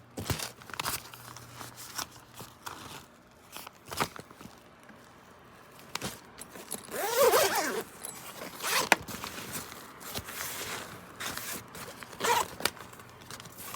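Laptop backpack zipper being pulled open and shut in several short runs, with the bag's fabric being handled in between; the longest, loudest zip comes about halfway through.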